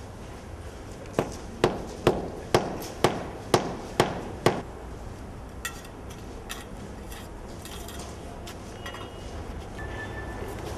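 Hammer blows on a road-works site: seven sharp strikes about two a second, each with a short ring. Fainter clinks and taps follow.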